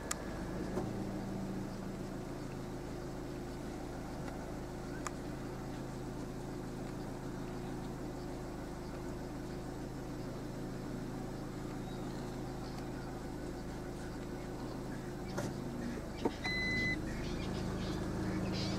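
A car engine idling steadily, a low even hum, with a short high note about three-quarters of the way through.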